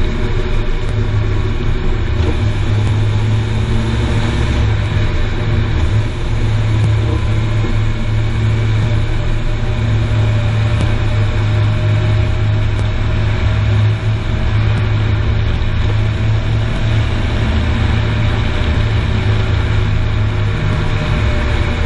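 Car being driven, a steady low rumble of road and running noise with an even hiss above it.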